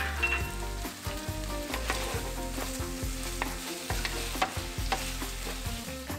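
A wooden spatula stirs sauce-coated shrimp in a nonstick grill pan over low heat. The spatula scrapes and taps irregularly against the pan over a light, steady sizzle.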